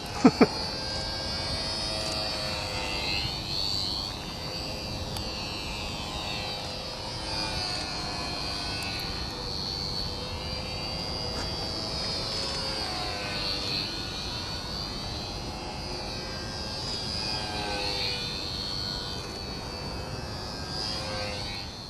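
Electric RC model Corsair's brushless motor and propeller whining in flight, the high whine rising and falling in pitch again and again as the plane swoops past. Two sharp knocks, the loudest sounds, come about half a second in.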